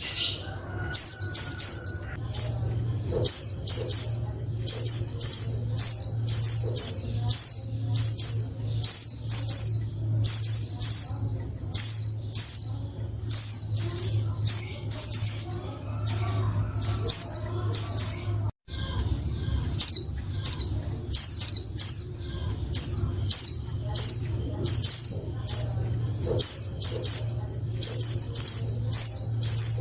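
Female white-eye (pleci) calling: clusters of short, high-pitched chirps repeated about once a second, over a steady low hum. It breaks off for an instant about two-thirds of the way through. Its calls are used as a lure to set male white-eyes singing.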